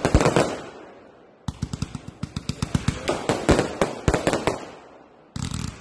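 Fireworks going off: rapid volleys of sharp bangs and crackling reports, as from a fired cake or battery. They fade about a second in, start again as a long fast run of bangs, and a new volley begins near the end.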